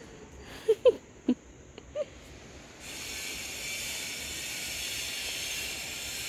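A dog gives four short yips, about a second and a half in all, then a steady hiss starts about three seconds in and holds.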